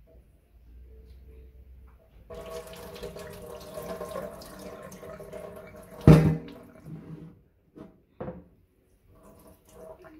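Water running from a kitchen tap into a steel bowl of moong dal and rice being rinsed at the sink, then a single loud knock about six seconds in, followed by a few short splashes.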